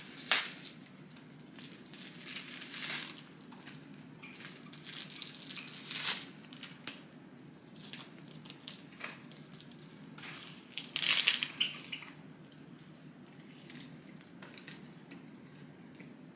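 Thin plastic film wrapper of a convenience-store onigiri crinkling and tearing as it is pulled open, in irregular bursts, loudest about a second in and again around eleven seconds in, then dying down.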